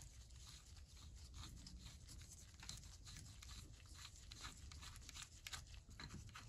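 Faint, rapid scratchy ticks and scrapes of a threaded steel retaining ring being unscrewed by gloved fingers from the head of a vintage Williams S-51 ratchet.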